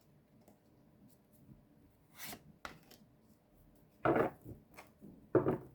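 Tarot cards being handled and set down on a table: a few short slapping knocks, the two loudest about four and five and a half seconds in.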